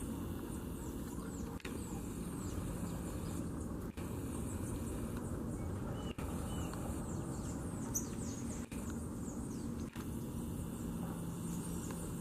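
Small birds chirping and twittering in short high calls over a steady low rumble, broken by brief dropouts every second or two.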